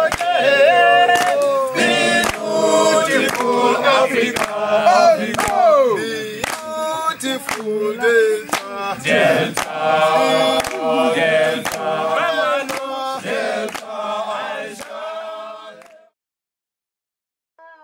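Soundtrack music: choral or chant-like singing, no words made out, over regular percussive hits, which fades out and stops about two seconds before the end. After a short silence a different, gentler tune starts right at the end.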